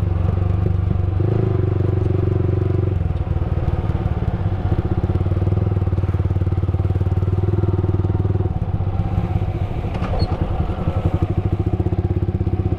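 Motorcycle engine running at low, steady revs while riding, its pulses becoming plainer from about three seconds in.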